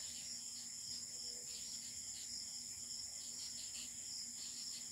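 Felt-tip marker scratching and squeaking across paper in short, irregular strokes as words are written, over a steady high-pitched background drone.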